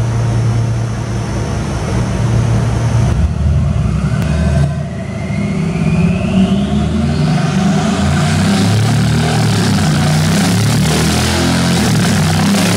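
Mercedes G63 AMG twin-turbo V8 with a decatted Akrapovic straight-pipe exhaust, running on a rolling-road dyno. It runs steadily at first, then from about four seconds in it accelerates with a rising whine and builds into a loud, hard-revving full-throttle pull.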